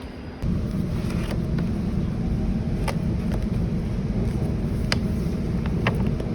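Steady low rumble of a moving road vehicle, with a few sharp clicks over it. It starts abruptly just under half a second in.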